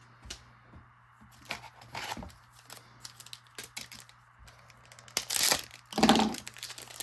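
Hockey card pack wrapper being torn open and crinkled, with small clicks and rustles of cards being handled and a loud tear a little after five seconds in.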